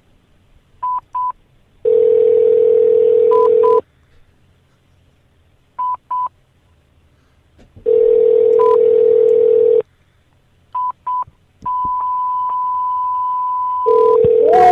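Telephone ringback tone: a steady low ring, two seconds on and four off, three times, as an outgoing call rings unanswered. Between the rings come pairs of short high beeps, and a longer high beep sounds near the end.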